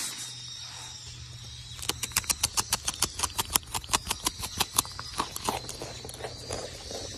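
A beaver gnawing a carrot held in its front paws: a fast run of crunchy bites, about five or six a second, starts about two seconds in and thins out after about five seconds.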